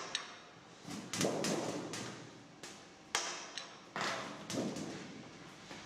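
Hand-lever bench shear cutting sheet metal: a series of sharp clanking cuts as the lever is worked, each fading quickly.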